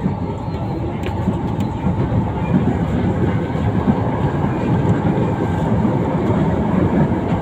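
Manila LRT Line 1 light-rail train running along its elevated track, heard from inside the car: a steady low rolling noise of wheels on rail, with a few faint clicks about a second in.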